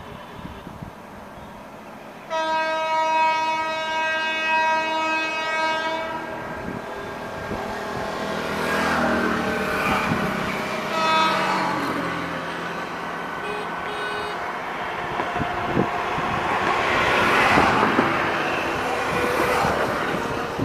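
An Indian Railways electric locomotive's horn sounds one long blast of about four seconds, then a short toot about five seconds later. The rumble of an accelerating train on the track then builds, loudest near the end, as the WAP-7-hauled passenger train approaches.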